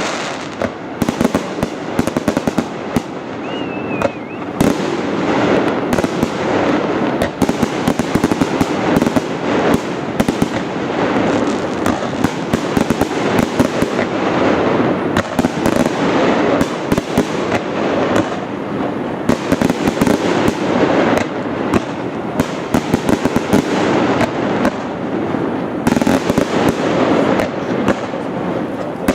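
Fireworks display: a dense, continuous barrage of shell bursts and crackling, many sharp bangs in quick succession.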